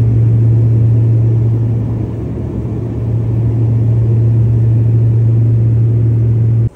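Airliner cabin noise in cruise flight: a loud, steady low rumble with a deep hum, cutting off suddenly near the end.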